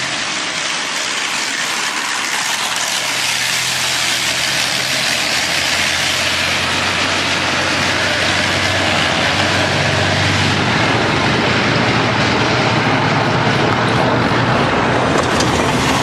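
Car driving fast along a road: a steady rush of wind and road noise over the engine, with the engine hum growing louder about halfway through.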